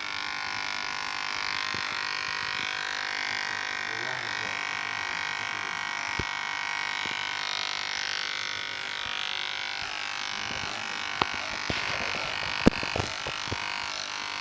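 Cheap electric hair clipper running with a steady buzz, with a series of sharp clicks near the end.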